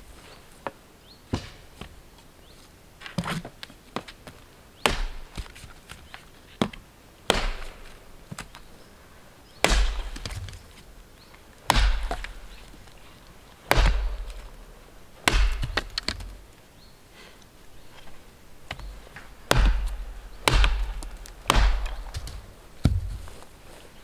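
Axe chopping into a fallen log: a series of sharp wooden strikes, lighter at first, then heavier blows with a dull thud about every one and a half to two seconds from about ten seconds in.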